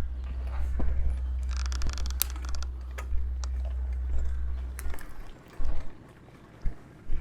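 Wind buffeting the microphone of a camera carried on a moving bicycle: a low rumble that stops about five seconds in. Sharp clicks and a brief rustle sit over it, and a few dull thumps follow.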